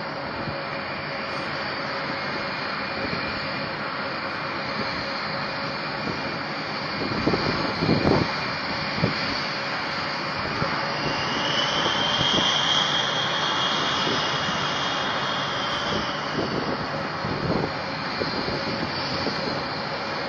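Aircraft engines running, a steady rushing noise with a high whine that swells about eleven seconds in and fades a few seconds later. A few low thuds come around eight seconds in.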